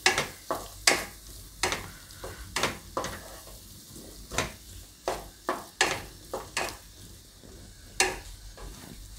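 Spatula scraping and turning a thick, oily masala paste in a kadai, in irregular strokes about one or two a second, over a faint sizzle.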